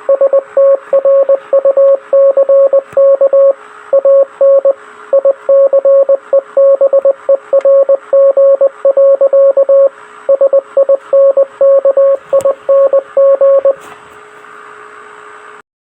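Morse code CQD distress call sent as a steady beeping tone, keyed in short dots and longer dashes over a constant hiss of radio static. The keying stops near the end, leaving only the static, which then cuts off suddenly.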